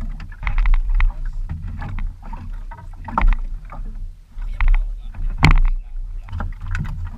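Sea water slapping and splashing against a small outrigger boat's hull and bamboo outrigger, in irregular splashes over a steady low rumble.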